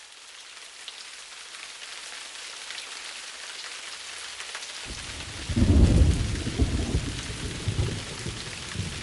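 Steady rain hiss fading in, then a roll of thunder starting about five seconds in, loudest around a second later and rumbling away in swells.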